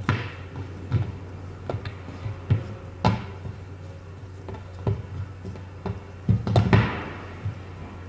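Leather wallet phone cases and a hard shell case being handled and set down on a wooden tabletop: scattered taps and knocks, with a quick cluster of louder knocks near the end. A steady low hum runs underneath.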